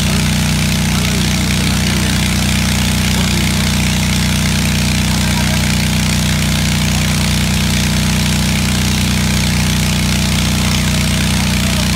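A fire engine's motor running steadily at idle, a constant low hum, with an even hiss over it.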